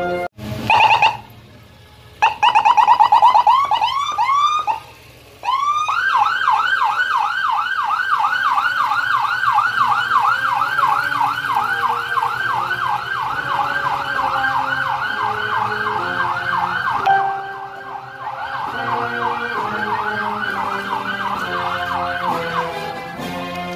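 Escort motorcycle's electronic siren: a few short blips, then rising wails, then a fast yelp at about four cycles a second, briefly breaking off and resuming before it stops near the end. Marching-band music carries on underneath.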